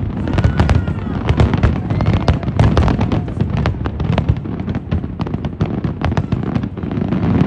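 Fireworks display in a rapid barrage: many bangs and crackles in quick succession over a continuous low rumble.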